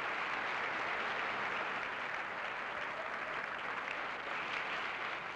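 A large banquet audience applauding steadily, many hands clapping at once.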